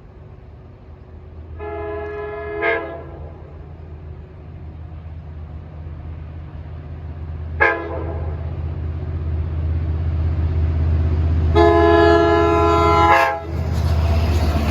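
Approaching Long Island Rail Road diesel passenger train sounding a good-sounding multi-chime air horn: a long blast, a very short one, then a longer one. Under the horn, the train's low rumble grows steadily louder as it nears.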